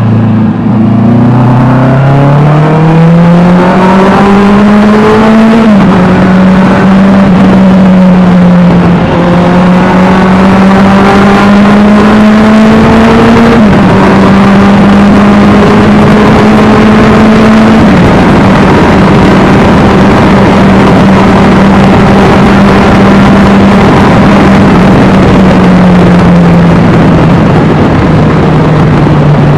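Honda CBR650R inline-four with an Austin Racing aftermarket exhaust, riding and accelerating: the engine note climbs and drops sharply at each of several upshifts, then holds steady at a cruise and eases off near the end.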